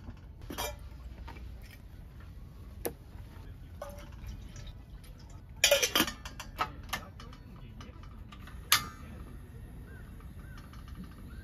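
Stainless steel kettle and cookware clinking and clattering on a tabletop portable gas stove, loudest in a short burst about halfway through, then a single sharp click from the stove's ignition knob.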